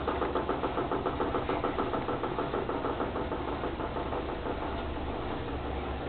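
Turbo Economia 7 kg (LTE07) top-load washing machine running, with a rhythmic knocking of about four beats a second that grows weaker in the second half.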